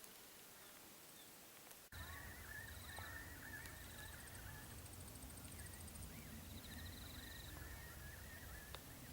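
Faint birdsong starting about two seconds in: a wavering warble with quick trilled notes, over a low outdoor rumble.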